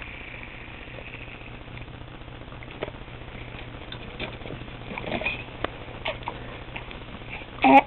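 Hiccups: short, sudden hiccup sounds at irregular intervals, with one louder hiccup near the end.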